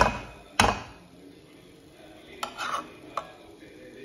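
Metal spatula stirring a dry coconut-and-greens stir-fry in a metal kadai, knocking and scraping against the pan. There are two loud knocks in the first second, then a few lighter scrapes and clinks about halfway through.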